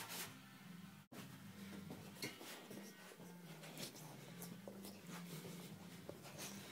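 Faint scattered scratches and light taps, like a dog's and cat's paws scuffling on a floor as they play, over quiet background music. The sound cuts out completely for an instant about a second in.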